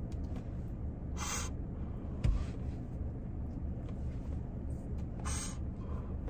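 Two short breathy puffs of someone smoking a blunt, about four seconds apart, over a car's steady low hum inside the cabin. A brief soft thump comes a little after two seconds in.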